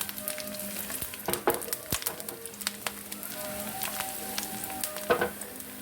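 Coconut slivers, cashews and raisins frying in hot ghee in a pan, sizzling with a steady hiss and many small crackling pops.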